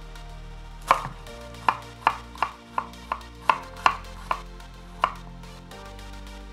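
Kitchen knife cutting a garlic clove on a wooden cutting board: about ten sharp knocks at an uneven pace, roughly two or three a second, starting about a second in and stopping about five seconds in.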